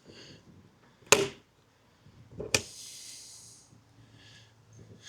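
Two sharp clacks about a second and a half apart, the second followed by a brief rush: a camping fridge's lid catch being released and the lid opened.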